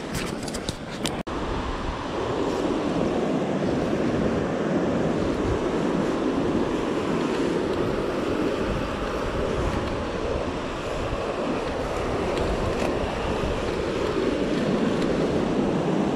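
Steady rushing of a fast-flowing river current, with some wind on the microphone. A few short rustles and knocks in the first second, as the wearer pushes through grass, before a brief cut.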